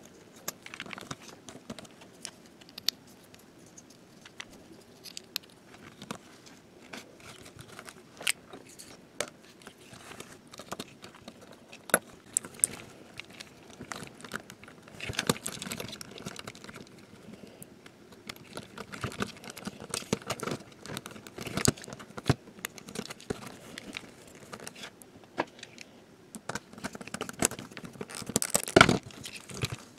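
Small plastic toy-train parts being handled and fitted together by hand, with scattered clicks, taps and rustling as the speaker and chassis are pressed into the body. A louder stretch of scraping just before the end comes as a screwdriver drives a screw into the chassis.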